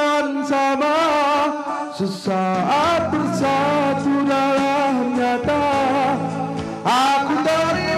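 A man singing a Malay song into a microphone over musical accompaniment. His held notes waver in vibrato, with short breaks for breath about two and seven seconds in.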